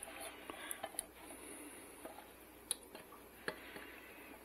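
Faint wet squishing and scraping as a silicone spatula scrapes thick cherry pie filling out of a can into a pot, with a few light clicks of the spatula against the can.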